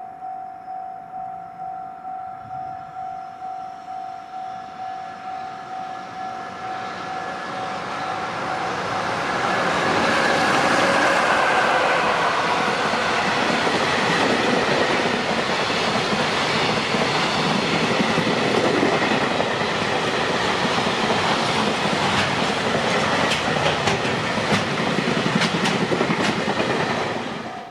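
A level-crossing warning bell rings about twice a second, then a JR Freight train runs past the crossing. Its steady loud rumble builds over several seconds and drowns the bell, with rapid wheel clicks over the rail joints near the end.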